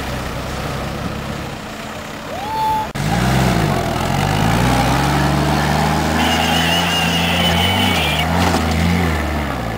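A WWII military jeep's four-cylinder engine working off-road, its pitch rising and falling as the throttle and load change. About three seconds in, the sound changes abruptly to the louder, closer engine note.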